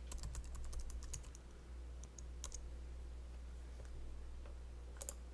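Light clicking of a computer keyboard and mouse: a quick run of clicks in the first second or so, a few more around two seconds in, and two near the end, over a low steady hum.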